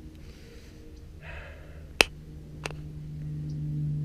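A sharp click or snap about two seconds in, the loudest sound, followed by a softer click. A low steady hum comes in at the same time and grows louder toward the end.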